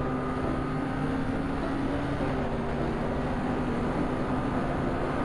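Wind rush on the rider's microphone over the Honda CB1000R's inline-four engine, running steadily as the motorcycle speeds up at highway speed.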